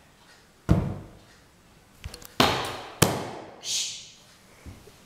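Three loud thumps: one about a second in, then two close together a little past the middle. A short hiss follows near the end.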